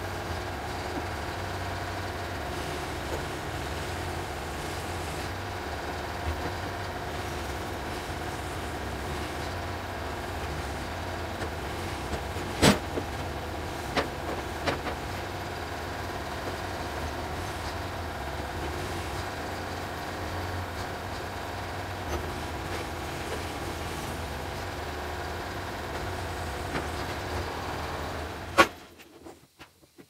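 Tractor front loader's engine running steadily at close range while its forks handle a birch log at the sawmill. A sharp heavy knock comes a little under halfway through, and another near the end, after which the engine sound cuts off.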